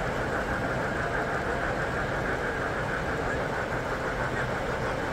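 Model trains running on show layouts amid the steady din of a crowded exhibition hall, with a faint rapid flutter and no single event standing out.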